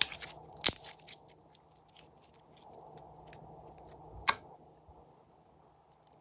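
Slime being handled, giving a few sharp pops and clicks with small crackles between them. The loudest pops come just under a second in and again about four seconds in.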